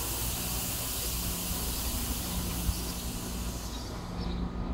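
Passenger train's air brakes releasing: a long hiss of compressed air that fades out near the end, over a steady low hum from the standing train.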